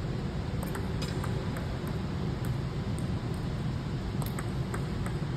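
Steady hum of a large sports hall, with scattered sharp clicks of table tennis balls striking paddles and the table, about ten at uneven spacing.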